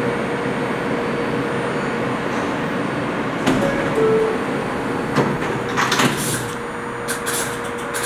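R143 subway train's doors closing: a two-note falling chime about three and a half seconds in, then the sliding doors knock shut around five to six seconds in. A steady hum from the standing train runs underneath.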